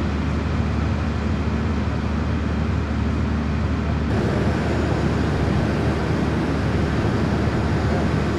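A steady low mechanical hum and rumble with a noisy hiss over it. About four seconds in the sound changes abruptly and turns hissier.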